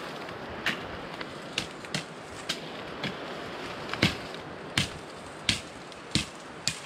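Footsteps crunching on dry bamboo leaf litter: sharp crackles at a walking pace over a steady background hiss.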